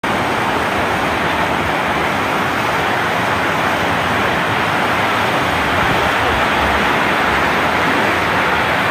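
Fast-flowing muddy floodwater rushing steadily in a flash flood.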